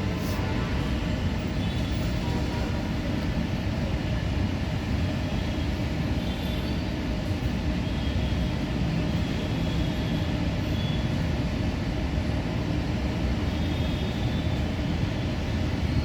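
Steady low rumbling background noise that holds at an even level throughout, with no distinct events.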